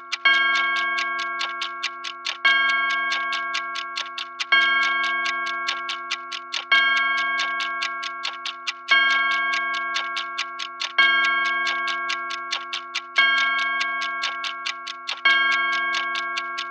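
Clock ticking rapidly, several ticks a second, while a bell-like chime strikes about every two seconds. Each chime rings out and fades before the next, about eight strikes in all.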